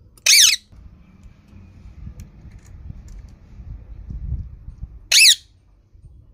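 Green parrot giving two short, shrill squawks about five seconds apart.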